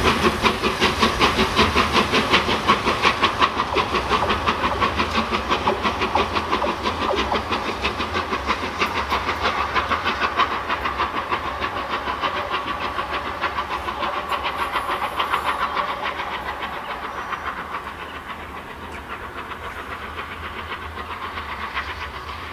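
Three-cylinder Peppercorn A1 steam locomotive 60163 Tornado working away under steam, its rapid, even exhaust beats fading as it draws into the distance.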